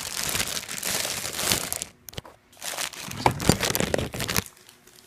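Packaging crinkling and rustling as a new angle grinder is handled out of its wrapping, in two bouts of a second or two with a short pause between them. The second bout holds a few sharp knocks.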